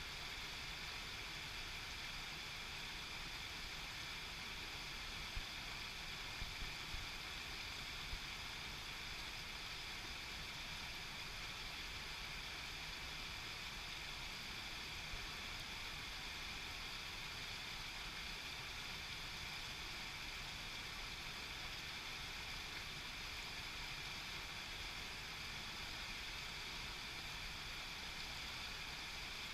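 Steady rushing of a small rocky mountain stream cascading over rocks, with a few light knocks about six seconds in.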